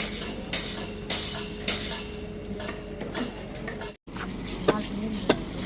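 Sharp knocks or taps, roughly every half second, over a steady mechanical hum; the sound drops out briefly about four seconds in, and sharper knocks follow.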